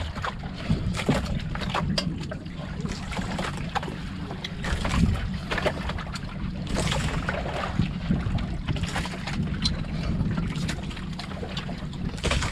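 Steady wind and sea noise aboard an outrigger boat, with scattered light clicks and taps of utensils on plates as people eat.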